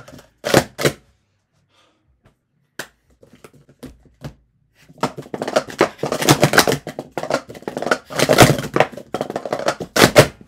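Clear plastic sport-stacking cups clattering in a fast run of clicks and knocks as they are stacked up and down, starting about five seconds in and ending with two sharp slaps. Two sharp taps and a few scattered ticks come before it.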